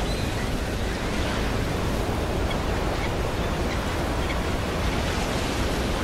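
Ocean surf: a steady, continuous wash of breaking waves with no single crash standing out.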